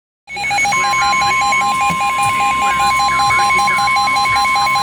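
Emergency Alert System warning alarm: a rapid electronic beeping on two pitches starts a moment in, and a steady single alert tone joins under it less than a second later. A faint voice runs beneath.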